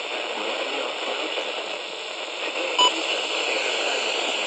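Steady hiss of radio static from a receiver with no announcement coming through, with faint steady whine tones running in it. Almost three seconds in comes one very short electronic beep.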